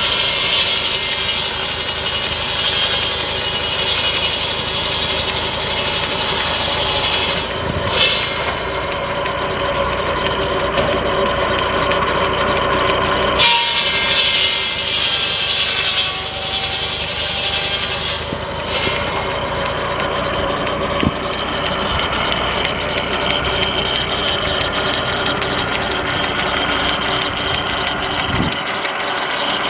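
A tractor PTO-driven buzz saw, a large circular blade, cutting through pine logs in a run of cuts over the steady running of a Farmall 140's four-cylinder engine. The hiss of the blade in the wood breaks off briefly three times, at about 7, 13 and 18 seconds in, between cuts.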